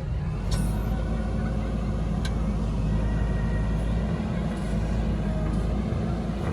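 JCB 3DX Super backhoe loader's diesel engine running with a steady low rumble. There are a couple of faint clicks about half a second and two seconds in.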